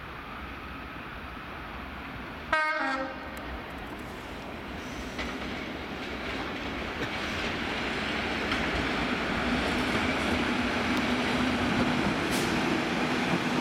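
A Class 73 locomotive gives a short horn blast about two and a half seconds in. The noise of the passing locomotive-hauled test train then builds steadily, with a low steady hum over the last few seconds.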